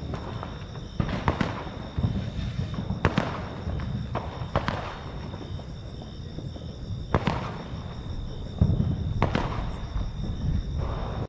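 Firecrackers going off at irregular intervals: a string of sharp bangs, several strong ones about a second or two apart and weaker pops between them, over a steady low rumble and a faint high-pitched tone.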